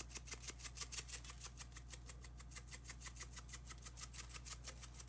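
Steak seasoning granules rattling in a spice shaker bottle shaken quickly, about five or six shakes a second, over a low steady hum.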